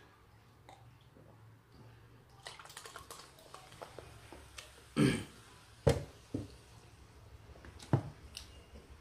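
Cola poured from a glass bottle into a plastic cup, fizzing and crackling, followed by a few sharp knocks on the table as the bottle and cup are set down.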